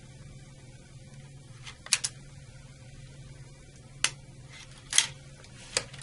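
Sharp plastic clicks from the secondary lead connectors being pinched with needle-nose pliers and pulled off the circuit breaker's secondary mounting bracket: a quick double click about two seconds in, then single clicks about four, five and nearly six seconds in. A faint steady hum runs underneath.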